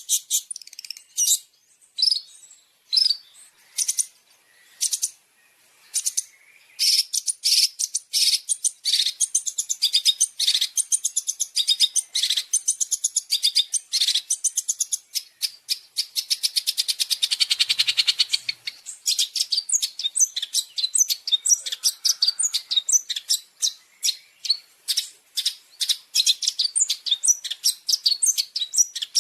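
Long-tailed shrike (cendet) song: a few sharp, high-pitched calls about a second apart, then a fast, unbroken run of chattering notes.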